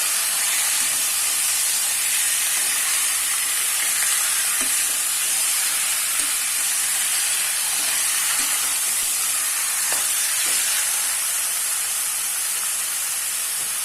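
Raw chicken pieces sizzling steadily in hot oil with fried onions in a kadai as they are stirred, with a couple of faint clicks about ten seconds in.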